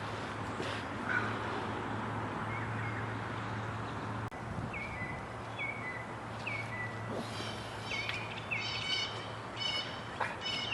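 Birds chirping: a run of short, repeated high calls that start about halfway through and come thicker near the end, over a steady low hum.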